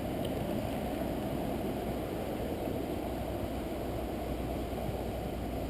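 Steady rush of white water from a drainage outflow spilling into the creek, a low, even noise.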